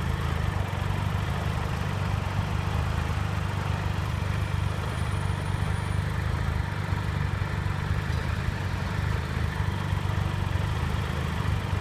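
Triumph Trophy SE's 1215 cc inline three-cylinder engine idling steadily.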